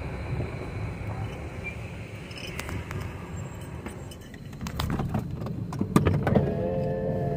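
Car rolling along a rough dirt road with a steady low rumble, then a run of sharp knocks and rattles about four and a half seconds in. Near the end an electric power-window motor starts up with a steady whine.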